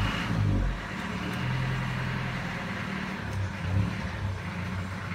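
A motor vehicle's engine running, a low steady hum that is loudest in the first second and then settles a little quieter.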